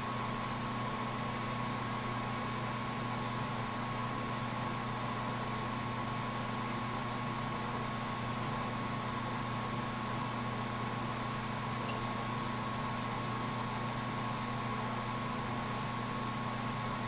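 Steady hiss of a lampworking bench torch flame over a constant electrical hum, with one faint click about two-thirds of the way through.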